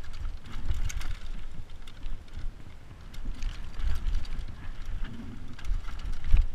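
Downhill mountain bike rattling and clattering at speed over a rocky dirt trail, with irregular knocks as the wheels hit stones and a low rumble of wind on the microphone.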